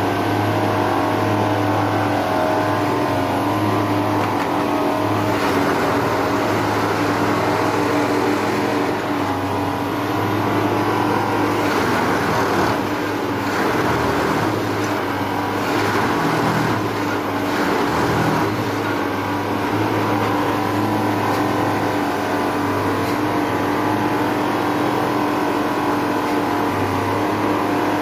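09-3X track tamping machine running, its diesel engine and hydraulics giving a steady loud drone and hum. The sound turns rougher and more uneven for a few seconds in the middle.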